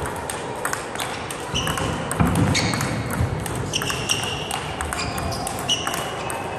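Table tennis rally: the ball clicking off paddles and table in quick succession, with short high shoe squeaks on the court floor and a dull thump about two seconds in.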